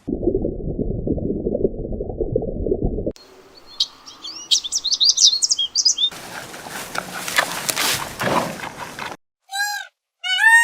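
A run of separate animal sounds with hard cuts between them. It opens with about three seconds of dense low rumbling noise, followed by quick high bird chirps, then a raspy, noisy stretch, and near the end two short arching calls.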